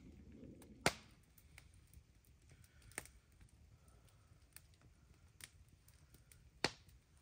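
Wood campfire crackling: a few sharp, scattered pops, the loudest about a second in and near the end.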